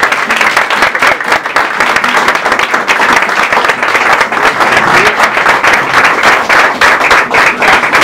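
Audience applauding: many hands clapping in a dense, steady patter.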